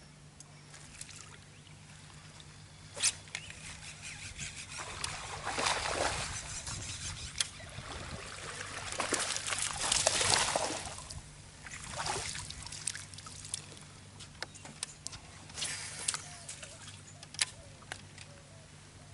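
Water sloshing and trickling around the boat, swelling twice (a few seconds in and again around the middle), over a steady low hum, with a couple of sharp clicks.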